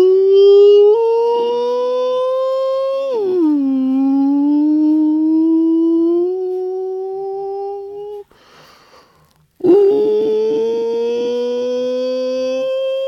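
A single voice holding long, wordless sung tones, each sliding slowly upward in pitch, with a swoop down about three seconds in. A short breath around nine seconds in, then the next tone starts and rises gently.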